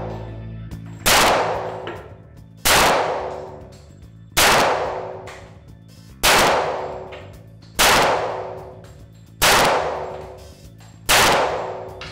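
Seven pistol shots from a railed Taurus 1911 in .45 ACP, fired one at a time about a second and a half apart. Each crack is followed by a long echoing decay off the range walls.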